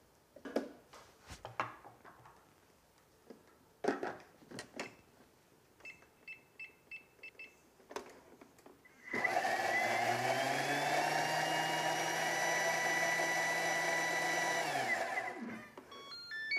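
A few knocks and clicks as the Thermomix bowl and lid go back into place, a short run of keypad beeps, then the Thermomix motor running at speed 10 for about five seconds, a loud steady whine as it purées onion, capsicum, chilli and garlic into a smooth sofrito paste, winding down at the end.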